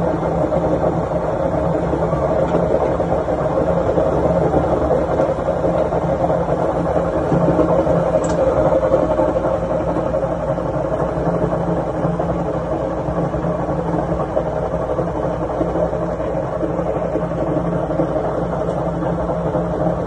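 Samsung ecobubble front-loading washing machine running steadily and loudly, its drum turning on worn-out drum bearings.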